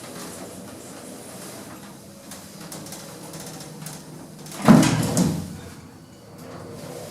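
Inside a 1980s lift car modernised by Kone, doors shut: a faint steady hum, then one loud clunk about two-thirds of the way through that rumbles away over a second or so, as the lift sets off downward.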